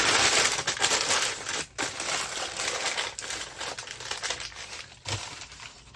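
Packaging crinkling and rustling as a bundle of accessories is unwrapped by hand: loudest in the first second and a half, then lighter handling that fades, with one sharp click about five seconds in.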